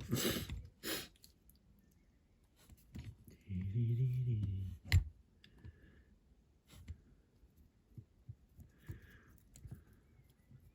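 Small clicks and knocks of a diecast model and tools being handled on a workbench, with a sharp knock about five seconds in and a short low hum just before it.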